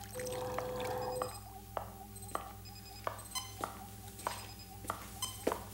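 Footsteps on a hard floor, a sharp tap about every 0.6 s in a steady walking rhythm, over a steady electronic hum. A brief steady tone sounds for about the first second.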